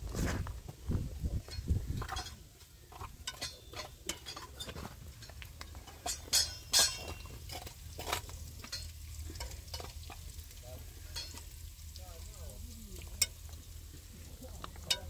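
Irregular clicks and light taps over a low steady rumble, with the sharpest clicks about six to seven seconds in.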